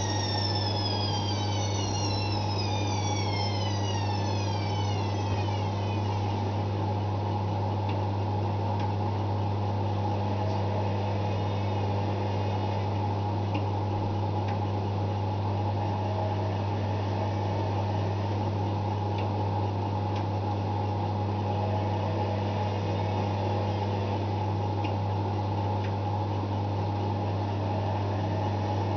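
Zanussi ZWF 1621 W front-loading washing machine on its 1600 rpm spin, a steady low hum. A high whine falls in pitch and fades away over the first few seconds.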